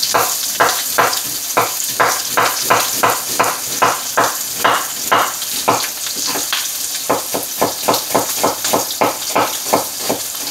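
Chef's knife slicing through a sweet onion and striking a wooden cutting board in a steady rhythm of about three chops a second, with a short slower patch midway. Under it, a steady sizzle of steak frying in the pan.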